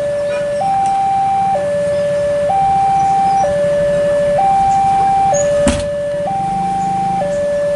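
Level-crossing warning alarm sounding with the barrier down: an electronic two-tone signal alternating between a lower and a higher tone, switching about once a second. A single sharp knock cuts in near the middle.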